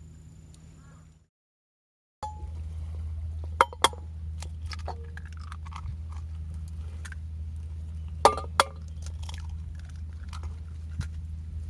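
Sharp clinks and knocks of camp cookware being handled, including two quick pairs of loud clicks, over a steady low rumble.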